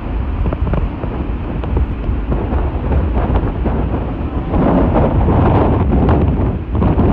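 Hurricane wind buffeting the microphone in a heavy rumble, with floodwater rushing across pavement. It grows louder about four and a half seconds in.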